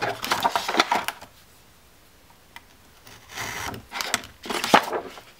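Paper being rubbed and slid by hand across a glass craft mat while a glued paper pocket flap is pressed down: short scraping rustles in the first second, a pause, then more rubbing after about three seconds with a few sharp knocks near the end.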